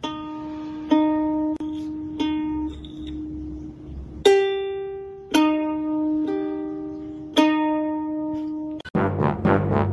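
Ukulele strings plucked one at a time by a cat's paw: about eight single notes, each ringing out and fading, most on the same low note with a couple of higher ones. Just before the end, different music cuts in.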